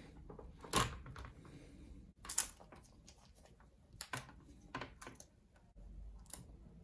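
Scattered sharp clicks and taps, about five distinct ones a second or so apart with fainter ticks between, as a flat-head screwdriver pries at the plastic and metal parts of a laptop's screen mount.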